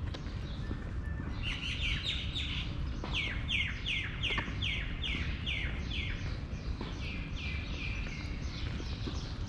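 A songbird singing a long run of repeated downward-sliding notes, about two or three a second, over a steady low background rumble.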